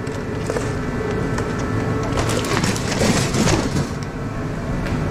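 Metal clattering, clicking and scraping as LED light panels are taken apart for their aluminum, busiest for a second or two in the middle, over a steady low hum.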